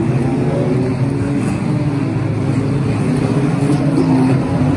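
Engines of several banger-racing cars running hard together as the pack races past, their pitches wavering up and down, over a steady rush of noise.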